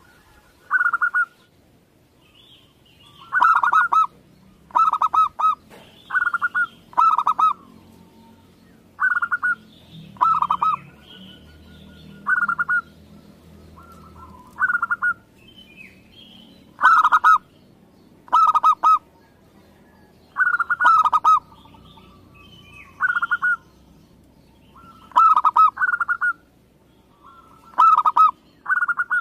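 Zebra dove (perkutut) cooing: short, rapid staccato coos, often in quick pairs, repeated every second or two, with faint higher chirps of other birds in between.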